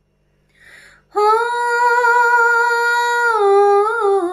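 A woman singing unaccompanied: after a short breath she holds a long, high sung "ho", then steps down to a lower note with vibrato near the end.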